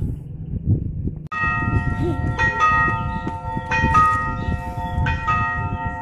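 Railway station warning bell ringing, a run of about five metallic strikes starting about a second in, each leaving several steady ringing tones. It signals that a train is approaching.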